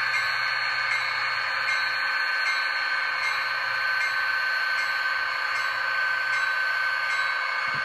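ESU LokSound decoder in a Bowser SD40-2 model locomotive, playing the sound of the EMD 645 diesel prime mover held at full throttle (notch 8) through its small onboard speaker. It is a steady, high-pitched diesel drone with no deep bass. Faint light clicks come about every two-thirds of a second.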